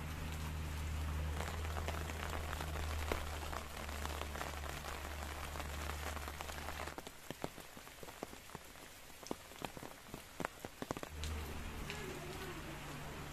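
Steady rain falling and pattering, with many small drops and a low steady hum underneath. About halfway through the hum drops out and single water drops splashing stand out more clearly, and the hum returns near the end.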